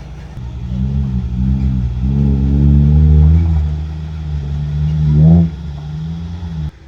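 Dump truck's diesel engine revving hard under load, its pitch rising and falling, with a sharp climb in revs about five seconds in. The sound cuts off suddenly near the end.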